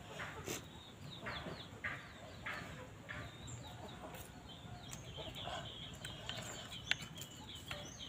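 Chickens clucking, with a run of short high chirps around the middle. A sharp clink of a fork on a plate comes near the end.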